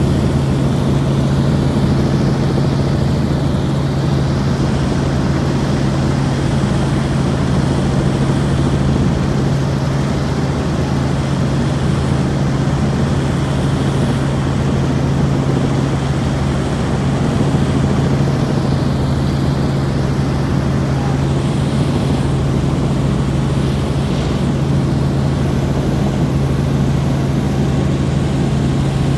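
Helicopter in flight: steady engine and rotor noise with a constant low hum, unchanging throughout.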